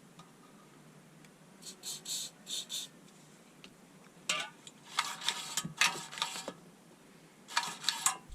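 Short hisses of spray lubricant about two seconds in, then the lawnmower's recoil starter being worked: the pull rope drawn out and wound back in with a whirring rattle, several times in the second half.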